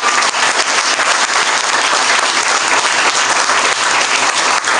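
Audience applause: a roomful of people clapping, a dense, steady, loud patter of claps.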